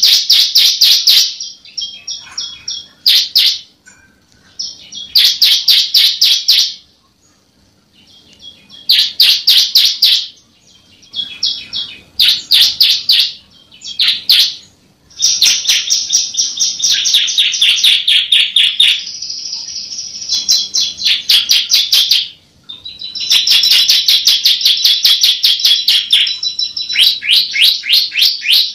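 A ciblek (bar-winged prinia) singing: loud, fast runs of repeated high, sharp notes in bursts of one to three seconds with short pauses, turning into longer unbroken phrases of several seconds in the second half.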